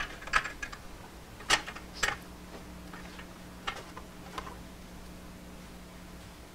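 Metal parts of a DeWalt 788 scroll saw's upper arm, its tensioner plate and lever, being handled and fitted back together by hand: a scatter of about seven short, sharp metallic clicks and taps in the first four and a half seconds, the loudest two about a second and a half and two seconds in.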